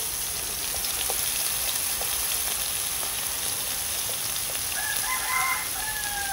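Oyster mushrooms frying in oil in a pan, a steady sizzle with small scattered crackles. About five seconds in, a rooster crows once, a drawn-out call that dips at its end.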